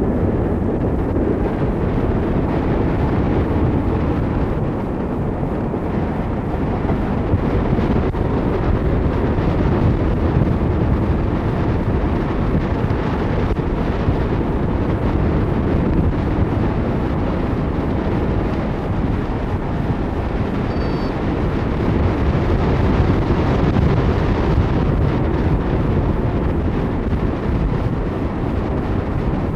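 Steady low rush of airflow buffeting the microphone of a camera mounted on a hang glider in flight.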